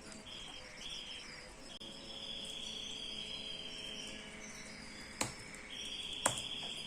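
Steady, high-pitched, insect-like chirring in the background, broken by two sharp clicks about five and six seconds in.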